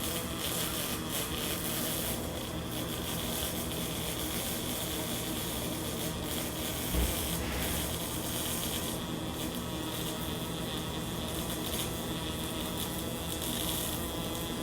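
Pulsed spray MIG welding arc (Lincoln S350 in 'Rapid Arc' pulsed spray mode, .045" ER70S-6 wire, 75/25 argon-CO2) buzzing steadily through a fill or cap pass on carbon steel pipe, throwing more spatter than normal, which the welder puts down to a nozzle that needs cleaning. A short low thump about seven seconds in.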